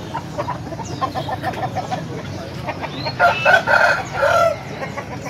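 Roosters calling: a quick run of short clucks about a second in, then a loud crow starting a little after three seconds in.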